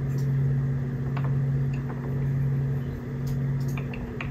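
A steady low hum, gently swelling and easing, with a few faint light clicks of wooden building planks being handled and set down.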